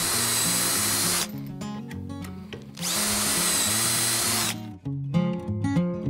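A drill boring two dowel holes into wood through the doweling jig's steel bushings, in two runs. The first lasts just over a second; the second starts about three seconds in and lasts nearly two seconds, dipping slightly in pitch as the bit loads. Acoustic guitar background music plays underneath.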